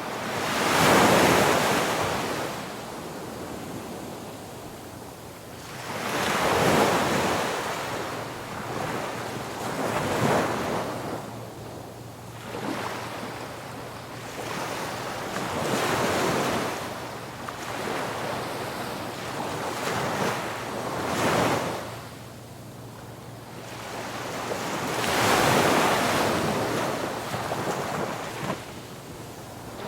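Ocean waves breaking on a beach: about six surges that swell and wash away, the loudest about a second in.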